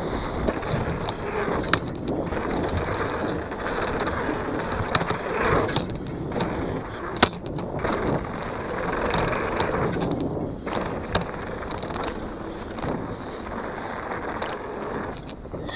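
Downhill mountain bike rolling fast over a dirt trail. A steady rush of tyre and wind noise is broken by frequent sharp clacks and rattles from the bike over rough ground, the loudest about seven seconds in.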